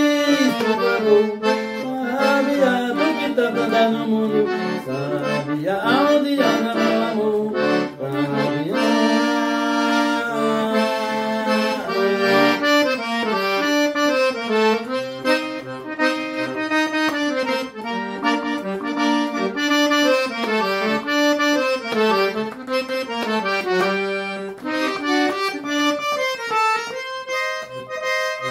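Accordion (sanfona) playing a forró melody solo, with quick melodic runs over a steady bass accompaniment.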